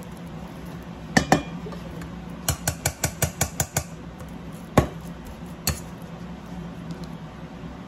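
Metal potato masher knocking against the bottom of a metal mixing bowl while mashing banana: two clanks, then a quick run of about nine, then two more single clanks.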